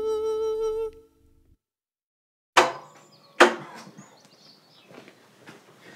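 A sung theme song ends on a held note about a second in. After a short silence come two sharp knocks less than a second apart, followed by faint scattered clicks.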